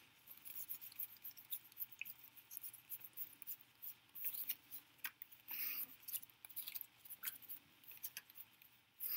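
Playing cards being fanned and slid one by one through the hands while a deck is sorted: faint, scattered soft ticks and brushing, with a few slightly louder swishes.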